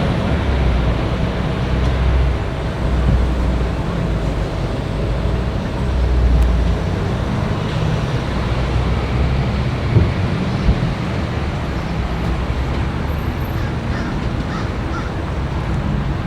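Steady low rumble of vehicle engines and road traffic, with two short knocks about ten seconds in.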